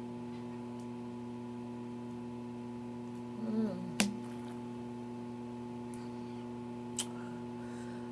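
Steady electrical mains hum. There is a short, soft vocal sound a little past three seconds in, and sharp clicks at about four and seven seconds.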